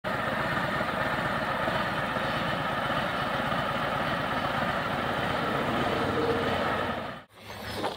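Harley-Davidson Tri Glide trike's V-twin engine idling steadily, cutting off abruptly about seven seconds in.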